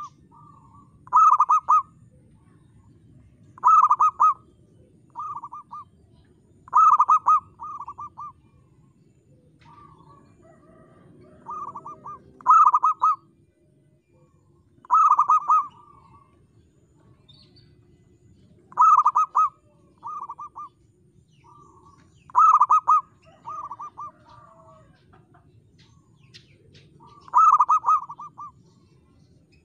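Zebra dove (perkutut) cooing: short phrases of quick staccato coos repeated every few seconds, loud phrases alternating with softer ones.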